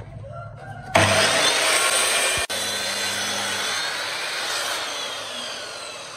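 Ryobi sliding miter saw crosscutting a thick wooden beam. A short rising whine as the motor spins up, then a sharp, loud onset of cutting about a second in as the blade bites into the wood. Over the last two seconds a falling whine as the blade winds down.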